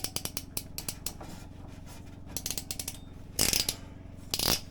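Rapid ratcheting clicks of a band-clamp cinching tool tightening clamps onto water-line fittings, with two louder, longer strokes about three and a half and four and a half seconds in.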